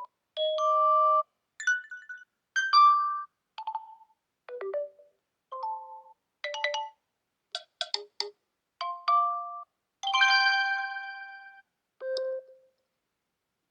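OnePlus 12 ringtone playing: a string of about a dozen short, bright electronic chime notes at varying pitches with brief gaps between them, swelling into a longer ringing chord about ten seconds in and closing on one last short note.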